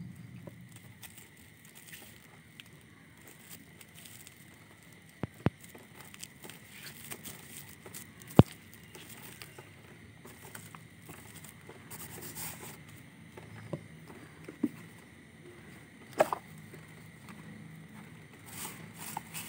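Hands handling paper and a plastic box: soft rustling of paper with a few sharp knocks and taps, the loudest about eight seconds in.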